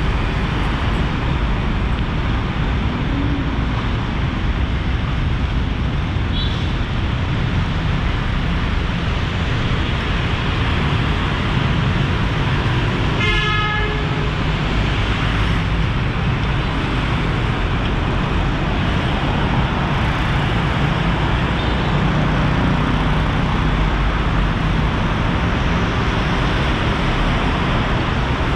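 Steady city street traffic with a vehicle horn sounding once, about halfway through, for roughly a second.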